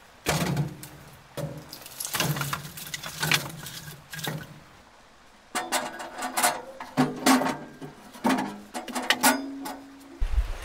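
Split firewood logs knocking and scraping against the steel firebox of a Wood & Burn Mystove wood stove as they are loaded in, with metal clanks that ring briefly. The knocks come in irregular clusters over several seconds.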